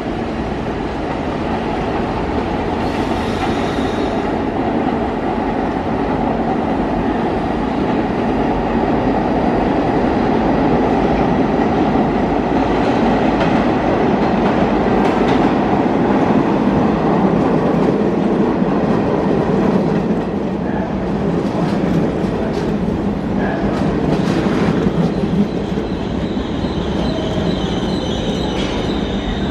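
New York City subway train approaching and pulling into the station, a steady rumble of wheels on rail that builds through the middle. High wheel squeals come in near the end as it slows for the platform.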